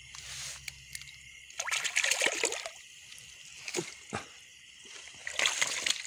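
A hooked catfish thrashing and splashing at the water's surface as it is pulled in on a set line. The splashing comes in irregular bursts: about a second and a half in, twice around the four-second mark, and again near the end.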